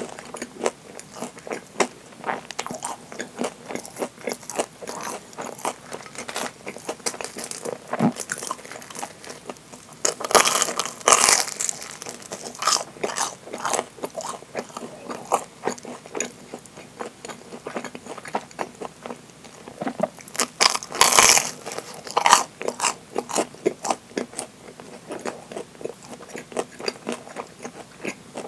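Deep-fried Japanese curry bread being bitten and chewed: the crisp breaded crust crunches with many small crackles throughout. Louder crunching comes at about ten and again at about twenty-one seconds in.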